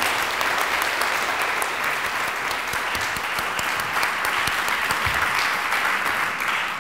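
Audience applauding: many people clapping steadily, starting to fade near the end.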